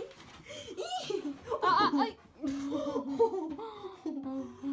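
A girl laughing in repeated bursts, with some high-pitched peaks.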